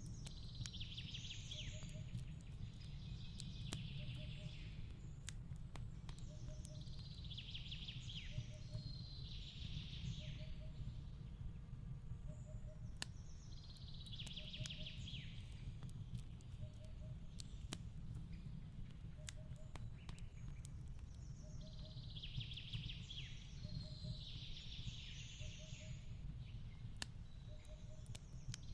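Wood fire crackling and popping over a steady low rumble, with a songbird singing short phrases every few seconds. A faint peep repeats about every second and a half.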